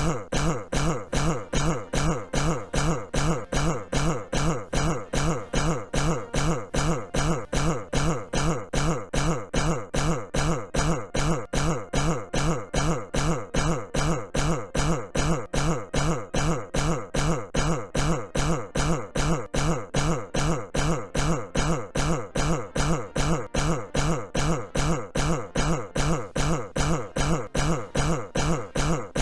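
Donald Trump's cough, one short clip looped over and over at an even rate of about three coughs a second.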